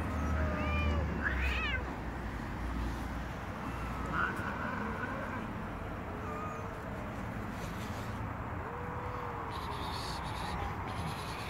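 Several cats meowing now and then: a few short meows in the first two seconds, then single meows spread out, with a longer, lower one near the nine-second mark.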